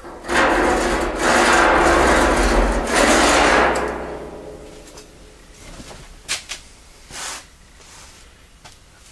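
Chalk scraped hard along the edge of a level across the rusty steel top of a drum, marking a straight line: a loud gritty scraping for about four seconds, broken twice, that fades off. A few short clicks and knocks follow near the end.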